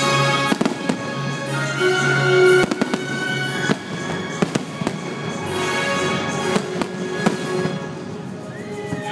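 Aerial fireworks display: shells bursting with repeated sharp bangs and crackles, heard over the show's accompanying music.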